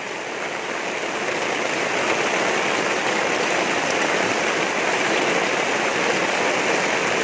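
Heavy rain pouring steadily, a dense even hiss that grows a little louder over the first couple of seconds.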